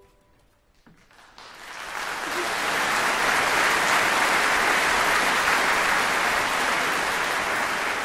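Audience applauding: after a brief hush, a few scattered claps, then the applause swells over about two seconds and holds steady.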